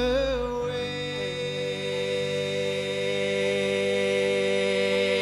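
Live band music: a long, steady held note or chord sustained through the whole stretch, with a slight wobble in pitch at its start.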